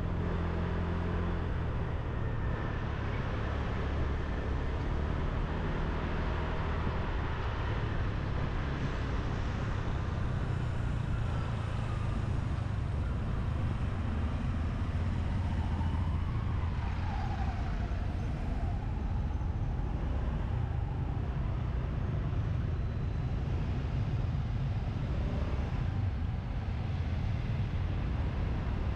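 Riding a motorbike in city traffic: a steady low engine and road rumble, mixed with the surrounding traffic of motorbikes and cars.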